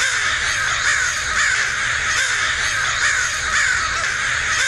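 A flock of crows cawing over one another without a break, a dense chorus of overlapping calls at a steady level.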